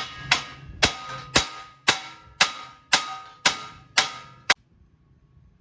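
Hammer blows on the front suspension of a 2004 Honda Civic, knocking the seized lower ball joint loose from the knuckle: about ten ringing metal-on-metal clangs, roughly two a second, that stop a little past halfway.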